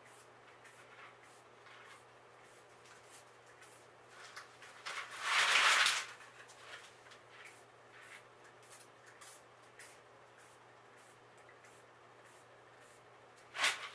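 Small hand-pump spray bottle misting plants: a hiss of about a second, a little past five seconds in, and a short one near the end. Faint rustling of handled leaves comes between the sprays.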